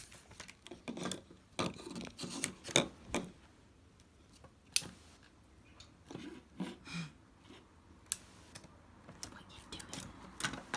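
A pet squirrel gnawing on a hard object: irregular small clicks and scrapes of its teeth, bunched in the first few seconds, then sparser.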